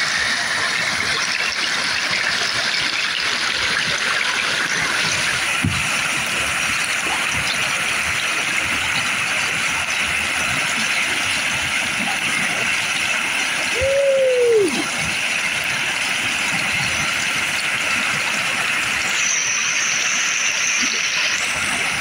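Whitewater rushing steadily through a river wave, loud and close. About two-thirds of the way through, a short pitched sound rises slightly and then drops away.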